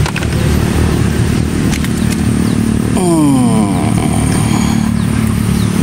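A motorcycle engine running over a steady low rumble, its pitch falling about three seconds in as it slows or passes by.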